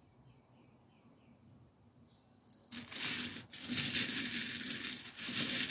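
Small silver metal charms stirred by hand in a glass dish: a dense, continuous jingling rattle that starts about halfway through, after near quiet.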